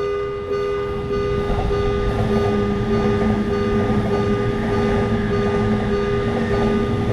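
Japanese railroad crossing alarm ringing its steady, repeating electronic tone about twice a second. A train's low rumble builds under it from about two seconds in.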